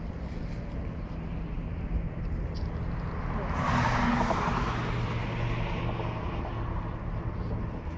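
Road traffic: a vehicle passes, its noise swelling to a peak about four seconds in and then fading, over a steady low hum.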